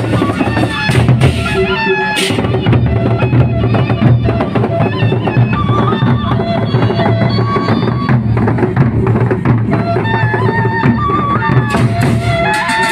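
Gendang beleq ensemble playing: big drums beating steadily under a high melody line, with sharp cymbal-like clashes throughout.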